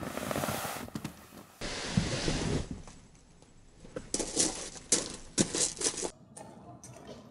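Shoes crunching and shuffling on gravel as a person climbs out of a car, with a quick run of short crunches in the second half.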